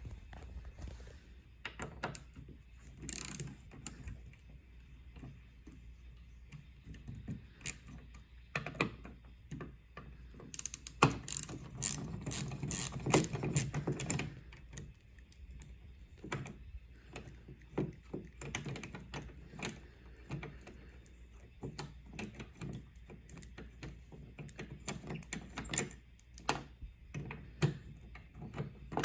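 Hand ratchet clicking in spurts with scattered clinks of metal tools, as the hinge bolts on a Jeep Wrangler JK door are worked loose; a long fast run of clicks comes about halfway through.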